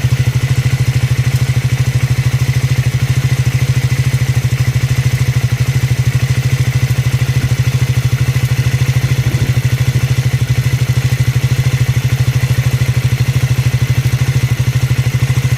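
Triumph Scrambler 400 X's 398 cc single-cylinder engine idling steadily with an even, pulsing beat and some clatter, unchanged throughout. The owner presents it as an abnormal engine noise.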